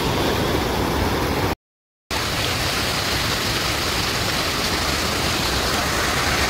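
Muddy floodwater rushing and churning over a road edge, a loud, steady wash of water noise. It cuts out for about half a second near the two-second mark, then resumes the same.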